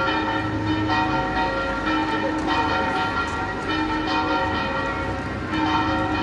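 Bells ringing, with a new stroke about once a second and each tone ringing on under the next.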